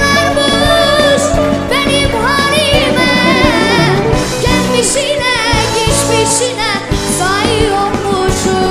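A song: a solo voice singing a wavering, ornamented melody over instrumental accompaniment with a beat.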